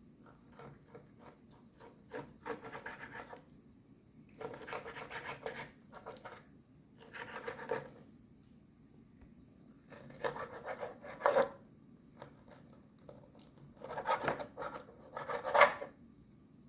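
Knife slicing through raw beef liver on a cutting board, in about five short bouts of rasping strokes with pauses between.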